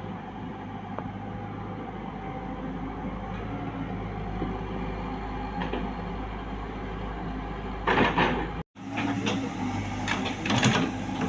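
Backhoe engine running steadily, joined about eight seconds in by loud, rough bursts of noise from the machine working. A brief gap in the sound marks a cut in the recording just after the bursts begin.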